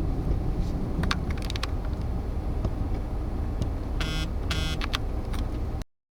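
Steady low rumble of a vehicle, with a few light clicks and two short electronic beeps about four seconds in.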